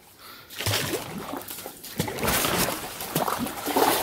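Kayak paddle strokes: water splashing and trickling off the paddle blade, starting about half a second in and going on in irregular splashes.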